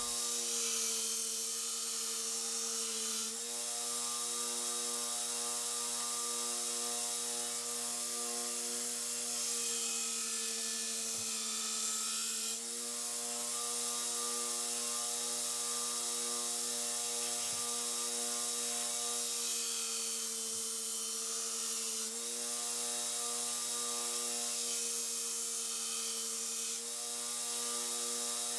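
Belt grinder running steadily with an even hum, its belt mostly running free of the work.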